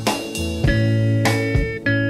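Background music: plucked guitar notes over a steady bass line.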